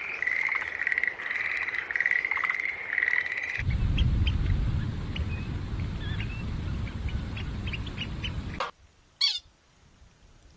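Animal calls: a steady, high, pulsing trill, then a cut to scattered short bird chirps over low wind-like rumble, and a single brief squawk near the end.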